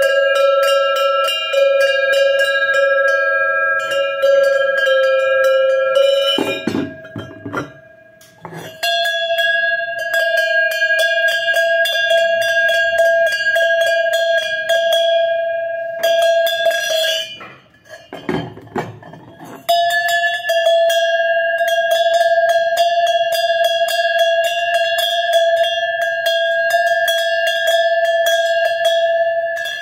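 Metal bells shaken in turn: each is rung rapidly by its clapper for several seconds, giving a steady ringing tone, and each rings at a slightly different pitch. In the two short gaps between bells there are knocks of handling.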